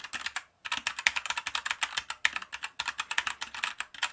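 Typing on a Keychron K4 mechanical keyboard with Gateron Brown (tactile) switches: quick runs of key clacks, with a brief pause about half a second in.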